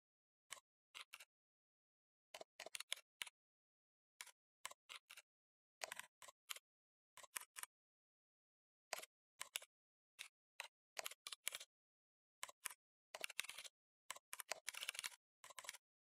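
Typing on a computer keyboard: keystrokes clicking in short irregular runs separated by silent gaps, building to a quick, dense flurry of keystrokes over the last few seconds.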